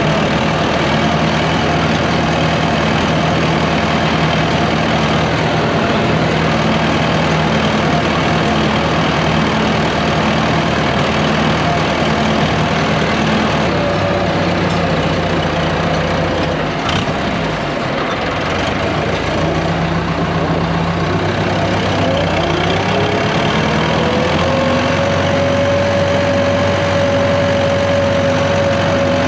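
Landini tractor's diesel engine running steadily while driving, heard from the cab. About two thirds of the way through there is a brief dip and a click. The engine note then rises over a couple of seconds and holds at the higher pitch.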